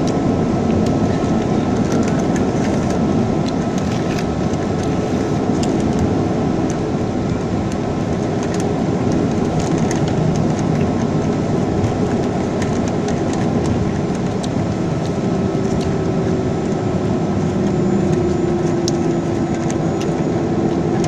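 Boeing 737-300's CFM56 turbofan engines running at taxi power, heard from inside the cabin as a steady rumble and whine with occasional light rattles.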